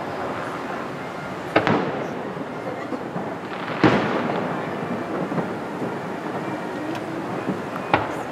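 Aerial fireworks shells bursting: three sharp bangs, about two, four and eight seconds in, the one about four seconds in trailing off longest in an echo, over steady background noise.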